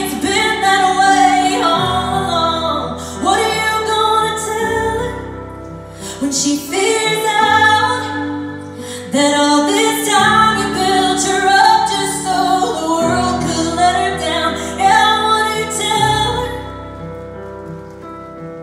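A woman singing a ballad live over sustained keyboard chords, heard from the audience.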